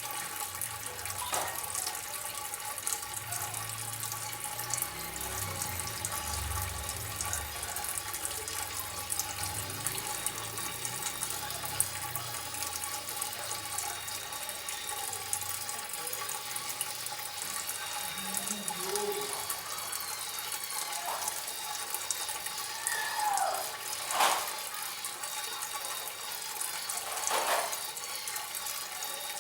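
Water trickling and splashing steadily. Near the end there is a brief falling whistle, and two short sharp sounds stand out above it.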